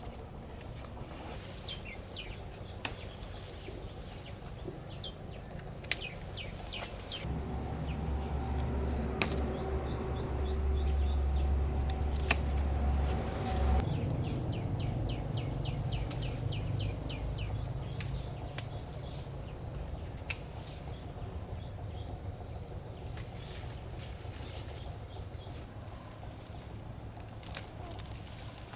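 Rural outdoor ambience: a steady high-pitched insect drone with short bird chirps and a few sharp clicks or knocks. A low rumble swells for several seconds near the middle.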